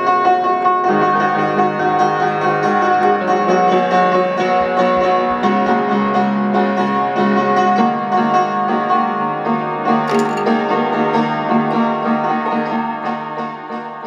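Piano playing a run of sustained notes and chords that change every second or two, fading out near the end.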